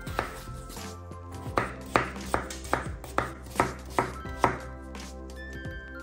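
Knife chopping food on a cutting board, a run of about eight sharp cuts at two to three a second, then stopping, over background music.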